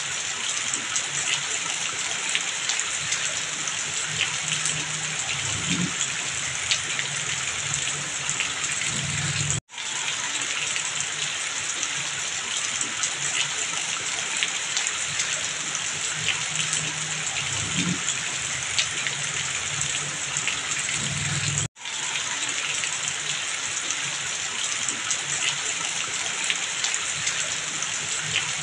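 Heavy rain falling steadily, with water streaming off a roof edge and splashing below. The sound cuts out for an instant twice, about ten seconds in and again about twenty-two seconds in.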